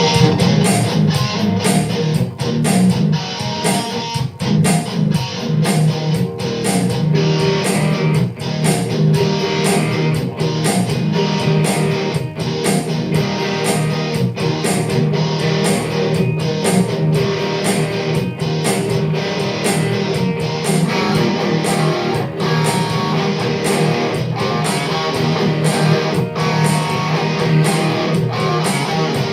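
Guitar music played continuously with a steady rhythm.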